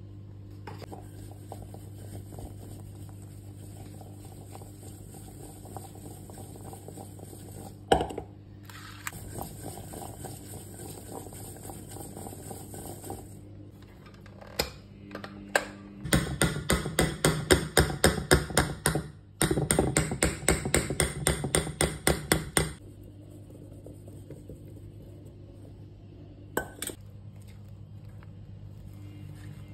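Quick repeated clattering in a stainless steel mixing bowl, about six knocks a second for some six seconds, with a short break partway through, as the bowl of flour-dusted blueberries is worked. A single sharp knock comes earlier, and a low steady hum runs underneath.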